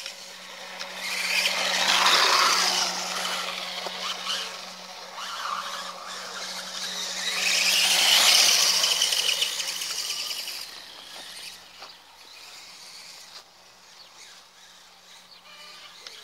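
Reely electric RC dirt bike running over grass, its motor whining and tyres churning. The sound swells twice as it passes close, loudest about two seconds in and again around eight seconds, then fades as it moves away.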